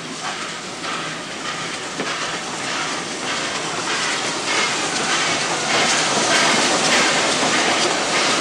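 Steam locomotive working past at close range, its exhaust chuffing in steady beats about two a second, growing louder as it draws level.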